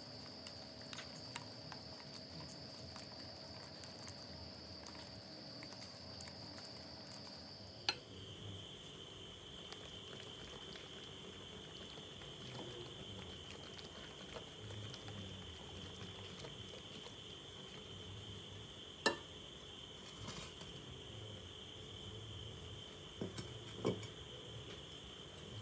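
A silicone whisk stirring a thick, creamy ice-cream base in a glass mixing bowl, soft and quiet, with a few sharp clinks against the glass. Near the end a glass dish is set down on the counter with two knocks. A steady high-pitched cricket-like trill runs underneath and drops in pitch about eight seconds in.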